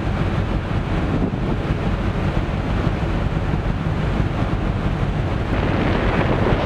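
Strong mistral wind buffeting the microphone on a ferry's open deck, a heavy rumbling rush, over the wash of rough sea. Near the end the hiss of churning water along the hull grows.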